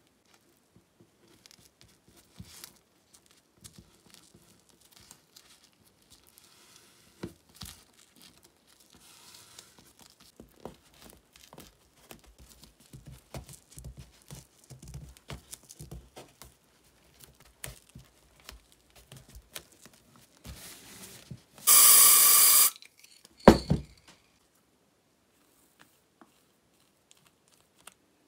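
Hand work on materials: quiet rustling and small clicks, then a loud tearing rasp lasting about a second, followed by a single knock.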